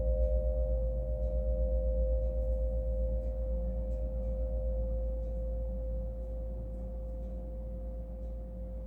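Schumann-resonance tuning forks ringing after a strike: two steady pure tones that fade slowly, with a fast, even pulsing. Their two pitches are set to beat at 7.83 Hz, the Schumann resonance or 'frequency of the earth'.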